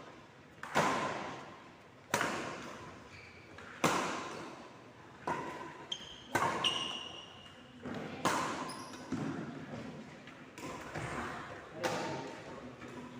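Basketball bouncing on a gym floor, about one bounce every second and a half, each echoing in the hall, with short sneaker squeaks midway.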